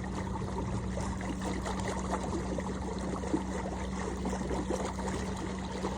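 Water trickling and splashing against a kayak as it is moved upstream, with a steady low hum underneath.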